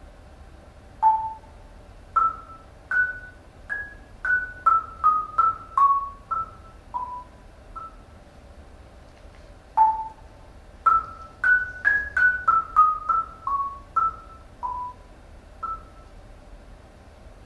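Yamaha concert marimba played with mallets: a slow melody of single struck notes that climbs and then steps back down, each note ringing briefly. The same phrase is played twice, with a short pause between.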